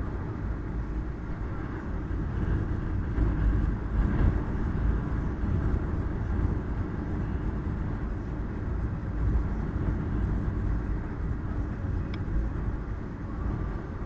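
Car driving along a road: a steady rumble of engine and tyre noise with no pauses.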